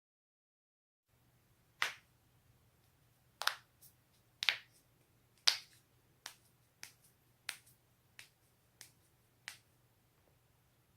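Joints being cracked: about ten sharp, separate pops starting about a second in, the first four loudest and the later ones fainter, over a faint steady hum.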